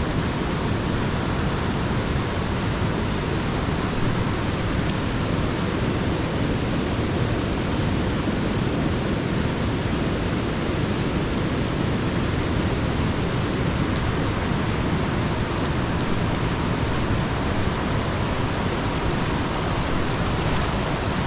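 Fast mountain river rushing over rocks and rapids: a steady rush of water with no pauses.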